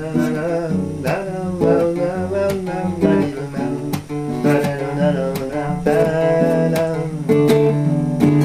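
Acoustic guitar strummed in a steady rhythm, an instrumental passage between the sung verses of a song.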